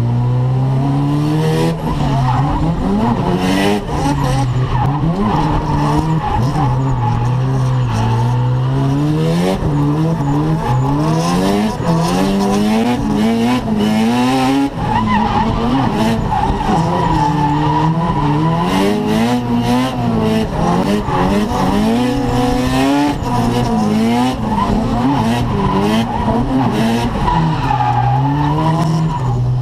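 A drift car's engine heard from inside the cabin, revving up and down every second or two as the throttle is worked through the slides, with tyre skidding and squeal under it.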